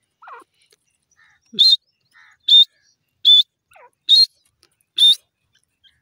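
Grey francolin calling: five loud, short, sharp notes, roughly one every 0.8 seconds, starting after a faint falling note. A few softer falling notes come between the calls.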